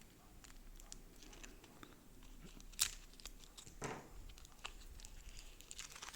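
Faint crinkling and scattered small clicks from packaging being handled, with one sharper click about three seconds in.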